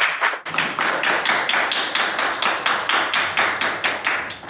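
Applause from a small group of people clapping, the separate claps plain to hear in a quick, uneven patter.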